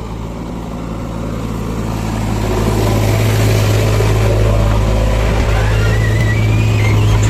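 Diesel engine of heavy earth-moving machinery running steadily, growing louder about two to three seconds in as it is revved up under load.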